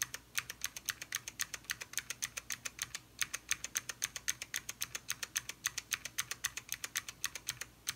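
Fast, steady typing on an Alps-switch mechanical keyboard fitted with thin Zenith dyesub PBT keycaps: a quick, even run of key clicks, about seven or eight keystrokes a second.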